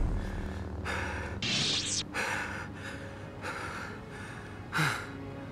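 A man panting hard, with a string of heavy gasping breaths, one roughly every half second, the loudest near the end. A faint low drone runs underneath.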